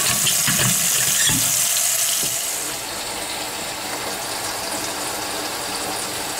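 Kitchen faucet running water into a stainless steel sink and down a newly fitted strainer basket drain, a test run to check the new basket for leaks. A few knocks at the drain come in the first second or so; about three seconds in the rush turns softer and duller and stays steady.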